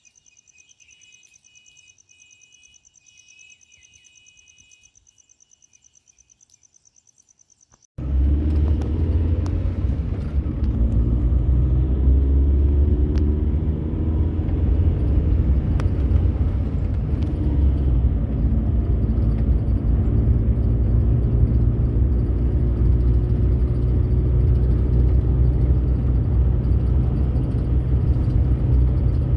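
Faint insects trilling steadily, cut off abruptly about eight seconds in by a car driving. The car's engine and road noise make a loud, steady low rumble for the rest of the time.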